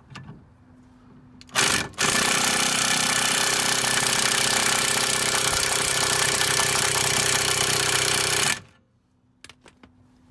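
Impact wrench hammering a lug nut down over a stud-installer tool to draw a new wheel stud into the rear hub: a short blip about a second and a half in, then a steady loud run of about six and a half seconds that stops suddenly. A few light clicks follow near the end as the socket and nut are handled.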